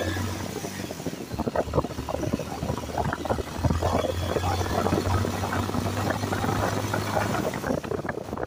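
Motorcycle engine running at steady low revs on a rough concrete path, with many short rattles and knocks from the bike over the bumps. The engine hum drops away near the end.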